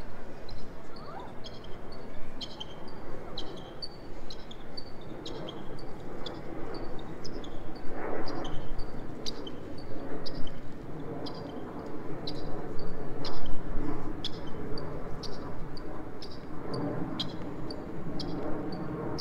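Footsteps at a steady walking pace, about two a second, over a murmur of voices and street noise.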